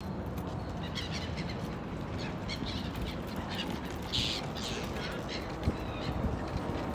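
Small birds chirping again and again, with one louder call about four seconds in, over a steady rumble of stroller wheels rolling on brick paving.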